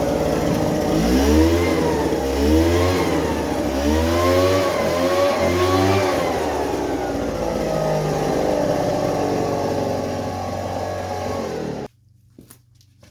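Small petrol engine of a portable bandsaw sawmill running, its speed rising and falling repeatedly as the blade works through the log. It cuts off suddenly near the end.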